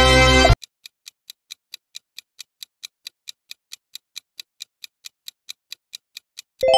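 Music stops abruptly about half a second in. Then comes a countdown timer's clock-like ticking, steady and quick at about four to five ticks a second. Just before the end a bright chime of several tones comes in.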